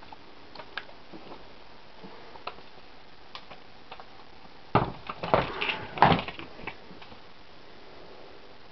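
A young squirrel's claws clicking and scratching on a wire-mesh cage, then a flurry of loud knocks and scrabbling about five seconds in as it scrambles across the mesh and cage edges.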